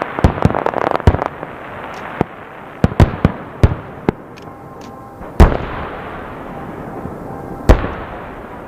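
Fireworks going off: a quick, irregular run of sharp bangs for the first few seconds, then two heavy booms about two seconds apart, each trailed by a fading rumble.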